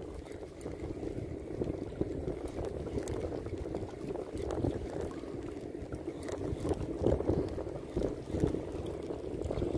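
Small waves sloshing and lapping against shoreline rocks in an uneven, fluctuating wash.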